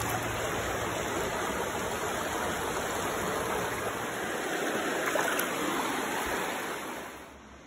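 Shallow, rocky stream running and burbling over stones close by, as a steady rush that fades out near the end.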